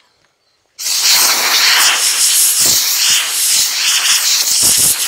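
Compressed-air blow gun on a shop air hose blowing one long, loud hissing blast that starts about a second in and cuts off suddenly at the end, with a few low buffets of air.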